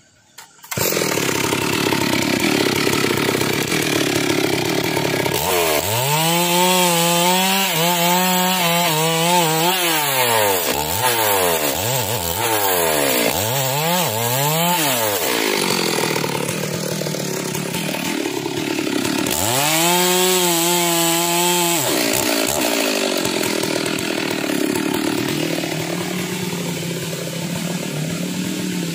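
Stihl two-stroke chainsaw cutting through a felled log. It starts suddenly just under a second in, and its engine pitch rises and falls again and again for about ten seconds from around six seconds in, and again for a couple of seconds about twenty seconds in. Between and after those stretches it runs more steadily.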